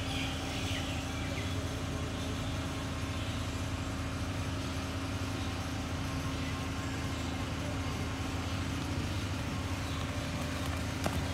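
A steady low mechanical hum, with an engine-like drone that holds one pitch throughout, under even outdoor background noise.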